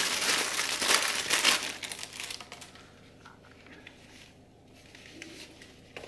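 Thin clear plastic bag crinkling as a fabric headband is pulled out of it, for about the first two seconds; after that only faint, soft handling of the strap.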